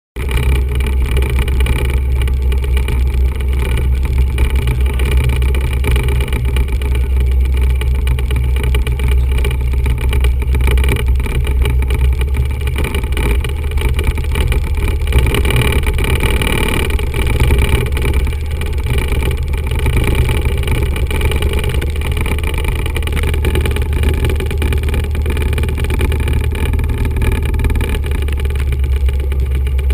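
Single-engine Cessna 172's four-cylinder Lycoming engine and propeller running steadily, heard from inside the cabin as a loud, low, even drone.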